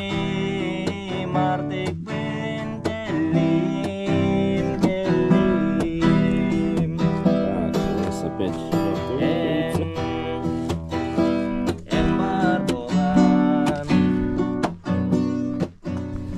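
Acoustic guitar strummed, playing chords with regular strokes.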